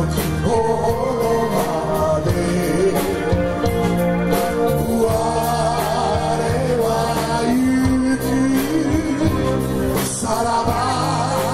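Live band playing a song: a man sings into a microphone over electric and acoustic guitars, bass guitar, keyboard and drums, with regular drum and cymbal hits.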